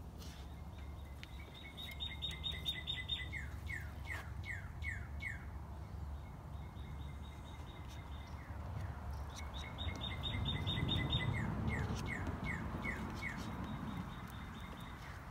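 A songbird singing twice: each song is a quick run of high notes followed by a few slower, downward-slurred notes, and each lasts about four seconds. A steady low rumble runs beneath and swells during the second song.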